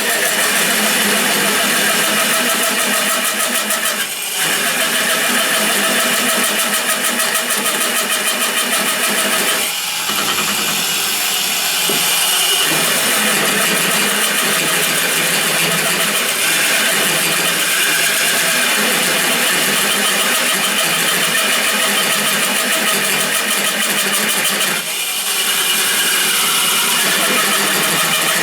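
A drill turning a 50 mm carbide-tipped hole saw as it cuts steadily through material, with three brief dips in the sound. It is slow, hard going for the saw.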